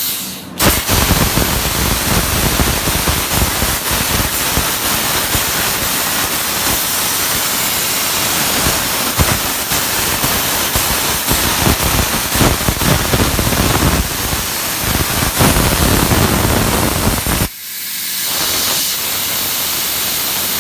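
Plasma cutter torch on an ArcDroid CNC cutting metal: the arc lights about half a second in and cuts with a loud crackling hiss for about 17 seconds, then stops, leaving a steady hiss of air from the torch.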